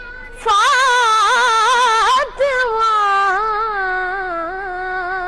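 A boy's solo voice singing a manqabat, an Urdu devotional poem, unaccompanied. About half a second in comes a long note ornamented with quick wavers up and down. After a brief break a second long note is held and slowly sinks in pitch.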